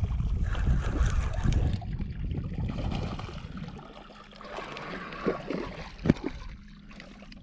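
A hooked fish splashing and thrashing in shallow water as it is reeled in and pulled up to the shore, over a dense low rumble in the first half. A few sharp knocks follow near the end.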